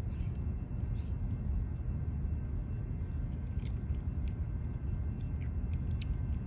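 Steady low rumble of wind and road noise on a phone microphone while riding an electric scooter, with a faint steady high whine over it and a few light ticks.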